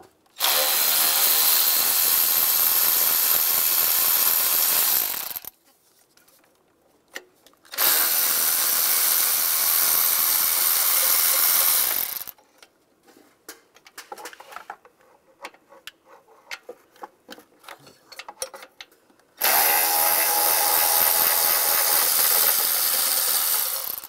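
Milwaukee cordless ratchet spinning out the caged 8 mm intake-manifold bolts on a 5.3L V8, in three runs of about four to five seconds each. Light clicks and taps fall between the runs as the socket is moved from bolt to bolt.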